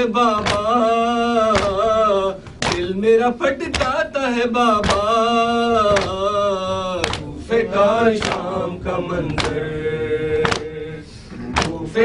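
A man chanting a noha, the Shia Muharram lament, in long held melodic phrases, with sharp chest-beating slaps (matam) from the mourners about once a second.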